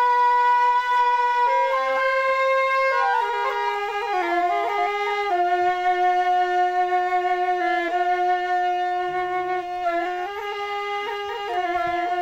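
Music: a single flute-like woodwind melody of long held notes, stepping down to a lower pitch a few seconds in and holding there.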